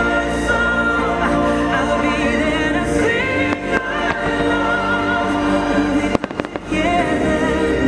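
Fireworks show soundtrack music with singing voices, played loud, with fireworks bursting over it. A short run of sharp cracks comes about six seconds in, as the music briefly drops.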